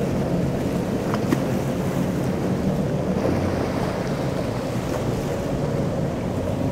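Boat engines running at slow speed, a steady low drone, mixed with wind buffeting the microphone and choppy water.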